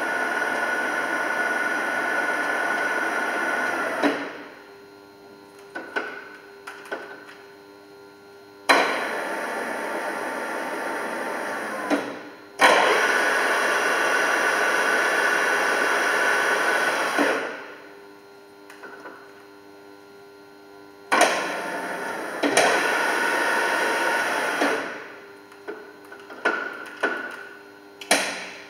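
Deckel FP3 milling machine running in four separate stretches, its gears and motor making a steady mechanical noise. Each stretch starts sharply with a clunk and winds down over about a second when switched off. Clicks of the controls come in the pauses.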